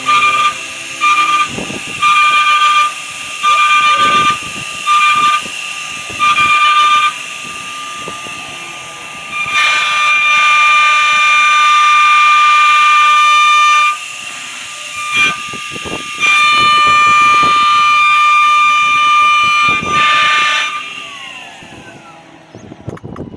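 A loud, high horn-like tone sounding in short blasts about once a second, then in two long blasts of several seconds each. Its pitch slides down as it fades near the end.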